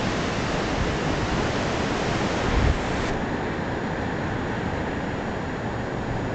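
Steady wash of ocean surf breaking on a sandy beach, heard as an even rushing noise, with a brief low thump about two and a half seconds in.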